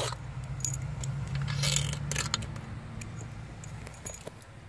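Light metallic clinks and rattles of hand tools and loose 8 mm bolts as intake manifold bolts are taken out of an engine, with a steady low hum underneath.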